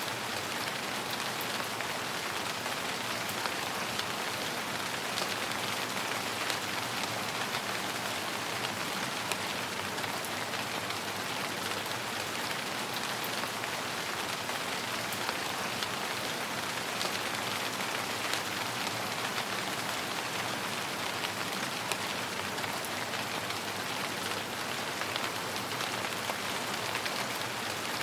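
Steady rain falling, an even hiss with individual drops ticking sharply through it.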